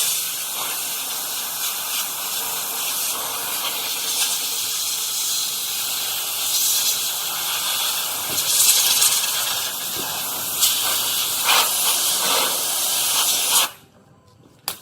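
Compressed-air blow gun blasting water off a wet-sanded car bumper, a steady loud hiss with a few brief surges, cut off abruptly near the end as the trigger is released.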